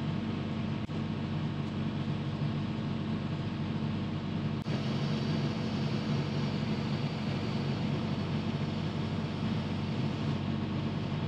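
Excavator engine running steadily under load as its arm lifts a log hung from the bucket on a chain. A click comes about halfway through, after which a higher hiss joins the engine.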